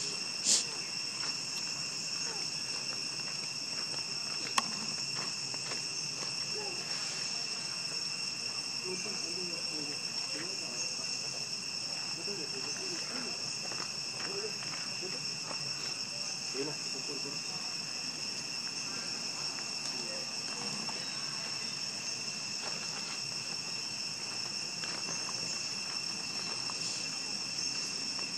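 Steady, shrill insect chorus: a continuous buzz holding two pitches. A brief louder chirp comes about half a second in, and a single sharp click about four and a half seconds in.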